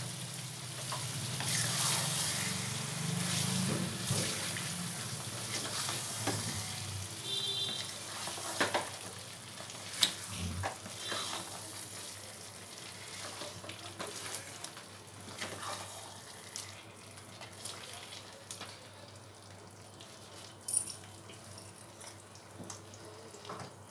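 Wooden spatula stirring and scraping a thick potato-and-masala gravy in a nonstick pan over the gas flame, with a soft sizzle underneath. Irregular clicks and knocks of the spatula on the pan, a few sharper ones, and the whole sound gets quieter toward the end.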